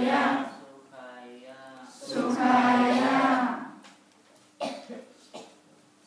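Voices chanting in unison in long phrases held on a steady pitch, then a cough and two smaller coughs near the end.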